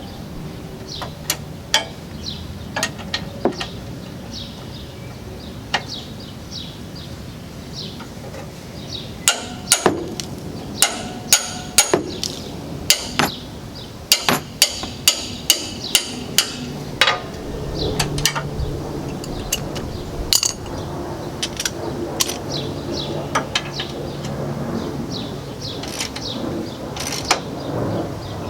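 Hand tools striking and clinking on metal brake parts during rear brake work: scattered sharp metallic taps with a short ring, bunched into a quick run of about a dozen strikes in the middle.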